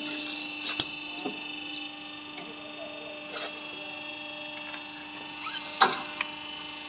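Electro-hydraulic hose crimping machine switched on and running with a steady hum. A few sharp clicks and knocks come as a hose fitting is pushed into the crimping dies, the loudest one near the end.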